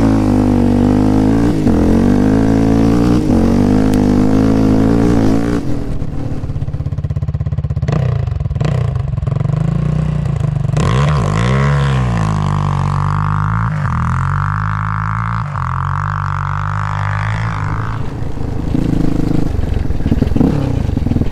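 Yamaha Raptor 700 ATV's single-cylinder four-stroke engine revving hard and easing off over and over while riding, the pitch climbing and falling. It drops back about six seconds in, revs up again around twelve seconds, then runs more steadily.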